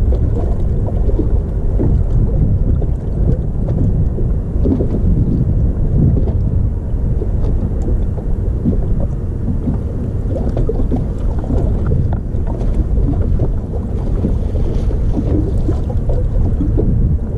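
Steady low rumble of wind buffeting the microphone of a camera mounted on a bass boat.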